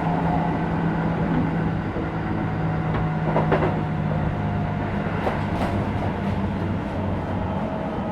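Running sound inside a Keisei 3050 series motor car with a Toyo IGBT-VVVF inverter: steady traction motor and inverter hum over wheel and rail noise, with a few clicks about three seconds in. The strongest hum fades out about five and a half seconds in.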